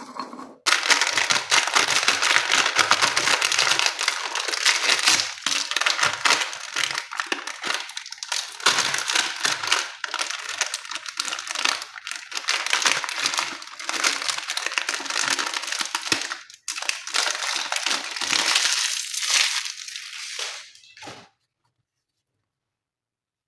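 Continuous close-up crunching and crackling of something being crushed by hand, dense and uneven, stopping abruptly about 21 seconds in.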